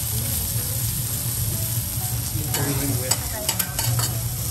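Beef, chicken and shrimp sizzling on a hot teppanyaki griddle over a steady low hum. From about two and a half seconds in come several sharp clinks of the chef's metal spatulas against the steel plate.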